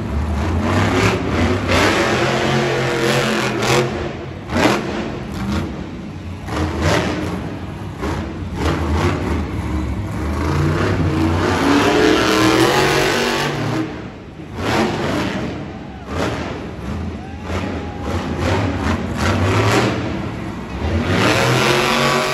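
Monster truck's supercharged V8 revving hard again and again, the pitch climbing and dropping over and over as the truck is driven around the arena floor.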